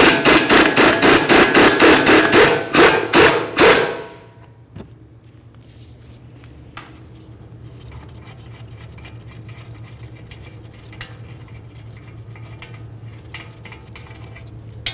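Half-inch impact gun hammering on the 21 mm upper control arm bolt at the rear knuckle, undoing it in one burst of rapid impacts that stops about four seconds in.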